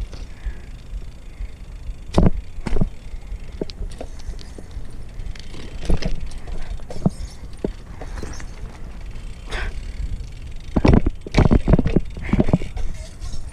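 A BMX bike's tyres rolling on concrete with a steady low rumble, broken by sharp knocks and clatters from the bike as it rides over edges and lands. The impacts come a few seconds apart, with a dense cluster near the end.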